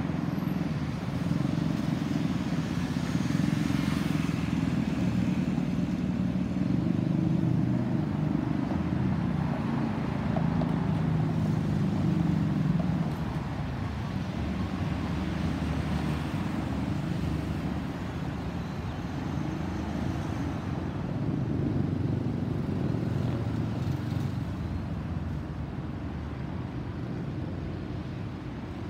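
Distant low rumble of a Boeing 737-800's CFM56-7B turbofan engines as the airliner climbs out after takeoff and passes over. It is steady and louder through the first half, then slowly fades.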